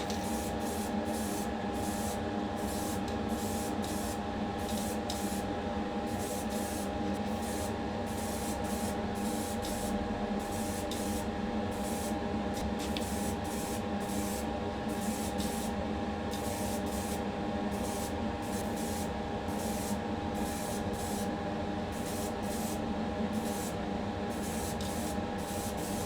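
Paint spraying while the small diecast wheels are coated: a steady hiss over a constant hum, with frequent short pulses in the spray.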